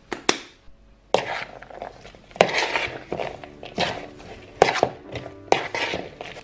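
A spoon stirring and tossing grated carrots and sweetcorn in a plastic bowl: wet rustling of the vegetables, broken by several sharp knocks of the spoon against the bowl.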